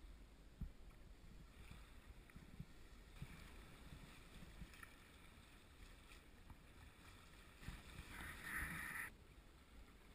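Faint wash of water along the hull of a small sailboat under sail, near silence, with a few light ticks and a brief louder rush of water near the end that stops abruptly.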